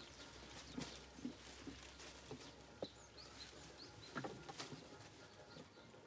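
A goat in labour, a kid emerging, gives a few short, faint grunts as she strains. Small birds chirp in the background.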